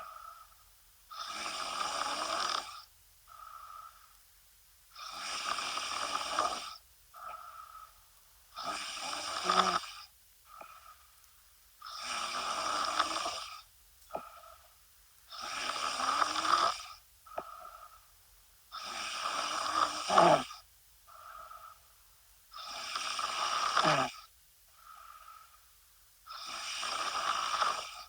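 A woman snoring, about eight loud snores in a steady rhythm, one every three and a half seconds, each followed by a shorter, fainter breath sound.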